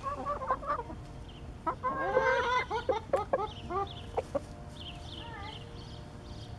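Rooster giving his food call to the hens: a run of short, rapid clucking calls, densest and loudest a couple of seconds in, then tapering off into a few fainter calls.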